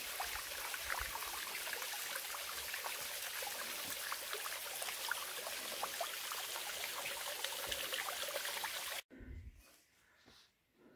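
Water of a small stream trickling and splashing over rocks, steady, with scattered small ticks. It cuts off suddenly about nine seconds in, leaving a near-quiet stretch with a few light clicks.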